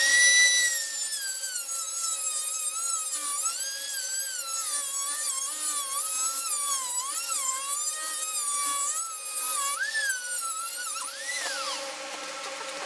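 Small handheld power tool motor whining. It spins up quickly at the start, its pitch wavers up and down for about eleven seconds, then it swoops up once and winds down and stops near the end.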